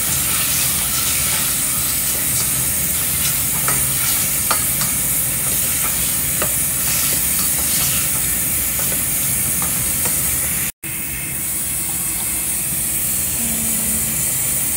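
Food sizzling in a frying pan: a steady hiss with scattered light clicks of a utensil against the pan. The sound drops out for an instant about eleven seconds in.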